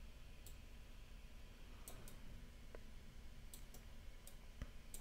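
Faint, scattered computer mouse clicks, about eight of them unevenly spaced, as shape handles are clicked and dragged in a 3D modelling program.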